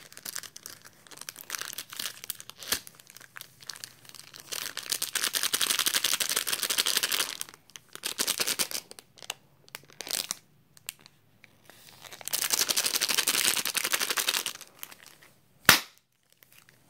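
Foil Pokémon booster pack wrapper crinkling in the hands as it is worked open, in two long spells of rustling, with one sharp snap near the end.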